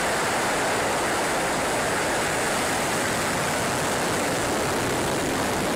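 Soyuz rocket's engines firing at liftoff: a steady, loud rushing noise that holds an even level throughout.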